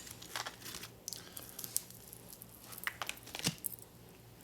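Quiet eating sounds: scattered small clicks and soft squishes as a mouthful of chicken lo mein and rice is chewed and handled, over a faint steady hum.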